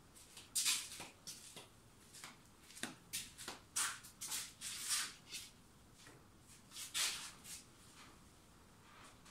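Shuffling footsteps and rustling: a string of short, irregular scuffs and scrapes, with a few louder ones about half a second in, around four to five seconds in, and about seven seconds in.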